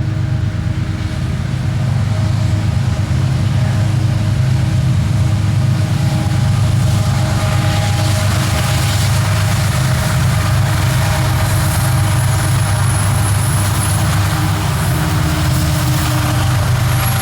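Diesel locomotives of a westbound coal train passing, their engines running with a steady low drone. Steel wheel and rail noise builds from about seven seconds in, with clicks near the end.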